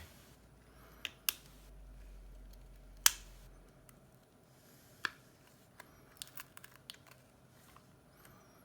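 Sharp clicks and taps from small hand tools and phone parts being handled during a smartphone repair: a few single clicks, then a quick cluster of small ticks about six seconds in.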